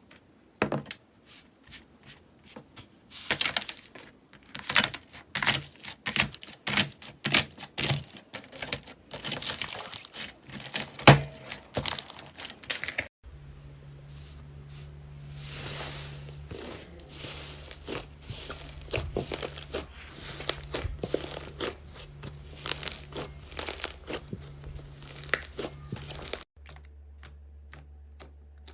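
Slime being squeezed and pressed by hand, making dense runs of crackling and popping clicks. About halfway in the sound cuts to another clip of the same, now with a steady low hum underneath.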